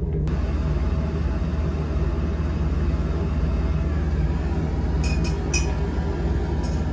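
Handheld gas torch flame hissing steadily while it heats a lump of sodium metal, over a constant low hum. A couple of faint clicks about five seconds in.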